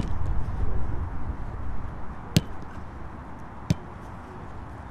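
A football being struck three times at a training session, sharp single thuds at the start, at about two and a half seconds and near four seconds, over a low outdoor rumble that fades after the first second or so.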